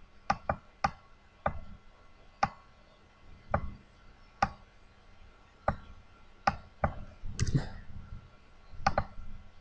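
Computer mouse button clicking at an uneven pace, single clicks and quick pairs of press and release, about fifteen in all.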